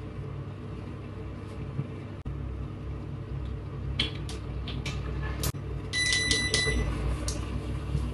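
A handheld facial beauty device giving a quick run of about five short high electronic beeps about six seconds in, as it is set to its essence-infusion mode. A few sharp clicks come just before, over a steady low hum throughout.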